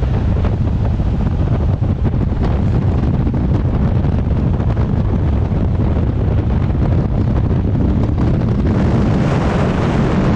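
Steady rush of wind and road noise from a moving car, with wind buffeting the microphone and a heavy low rumble.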